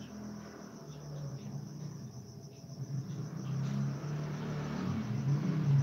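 Insects chirping steadily outdoors, with a low droning hum that grows louder toward the end.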